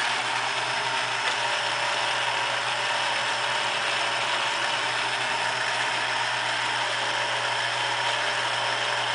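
Garden-scale GP38 model locomotive's electric motor and geared drive running steadily on a test wire, wheels spinning while an abrasive track-cleaning block is held against them to clean off dirt for better electrical contact.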